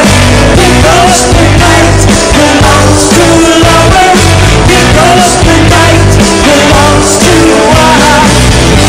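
Rock song playing loud, with a singing voice over a steady beat of drums and bass.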